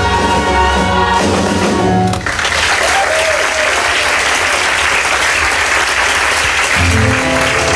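A chorus and band end a musical-theatre number on a held final chord, and about two seconds in the audience starts applauding. Near the end the band starts playing again under the clapping.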